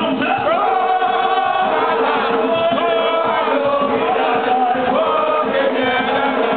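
Live gwoka song: a group of men singing lead and answering chorus over ka hand drums.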